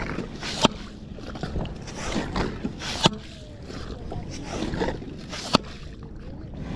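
Wet sand and water sloshing and squelching as ghost shrimp are pumped out of a beach flat, with three sharp clicks about two and a half seconds apart.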